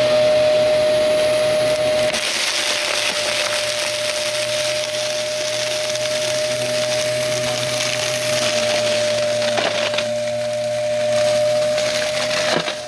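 Vacuum cleaner running with a steady motor whine while sucking up crunchy debris, which crackles and rattles densely through it.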